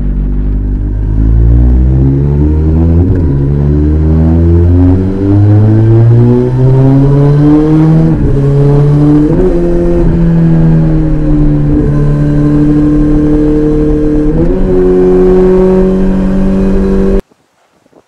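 Kawasaki ZX-14R's inline-four engine with an Akrapovic exhaust accelerating hard through the gears: the pitch climbs and drops back at each of several quick upshifts, then runs steadier at speed. The sound cuts off abruptly near the end.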